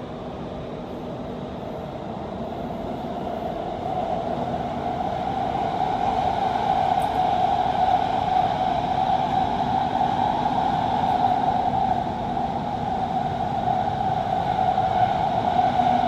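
Metro train running noise heard from inside the carriage: a steady rushing hum that grows louder over the first several seconds as the train picks up speed, then holds.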